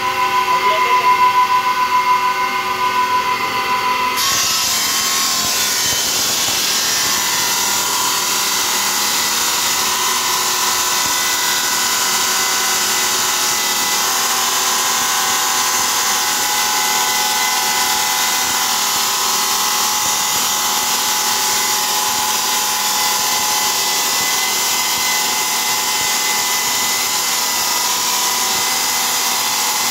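Motorised circular stone-cutting saw running with a steady whine. About four seconds in, the blade bites into a large ceramic tile and the sound turns into a steady, high grinding hiss of the cut, which holds to the end.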